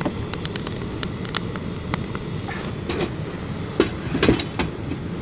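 Portable butane gas burner running with a steady roaring hiss while a damp split firewood log is held in its flame, with scattered small crackles and pops from the wet wood. A few louder wooden knocks come between about three and four and a half seconds in as the log is handled.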